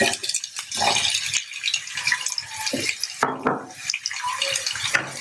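Chopped onions sizzling and crackling in hot sunflower oil in a frying pan, with a few knocks against the pan.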